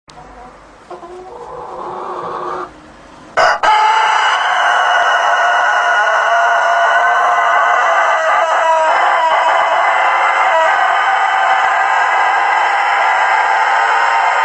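Rooster crowing: a shorter call that swells for about two and a half seconds, then, after a sharp click, one very long loud crow held steady for more than ten seconds.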